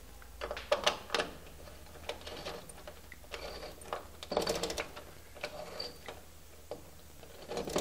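Irregular clicks, taps and short scrapes of hands, stiff copper wire and a tool working against a screw terminal block in an electrical panel, as a wire is fitted and its terminal screw tightened.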